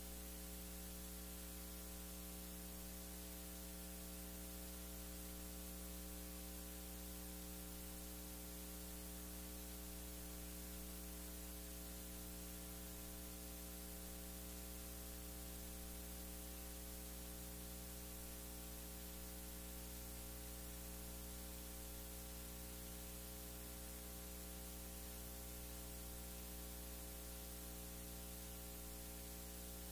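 Steady electrical mains hum, a buzzy stack of even tones over faint hiss, unchanging throughout; no voices or singing come through.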